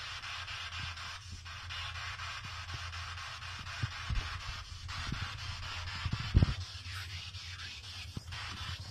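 SB7 spirit box sweeping through radio frequencies: a steady hiss of static, chopped into rapid even steps, over a low hum. A few low thumps come through it, the loudest about six and a half seconds in.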